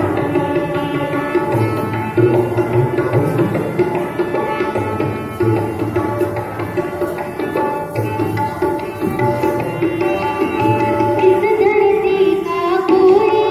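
An Indian song performed live: a student sings into a microphone over sustained reedy keyboard chords and a repeating tabla-like drum beat.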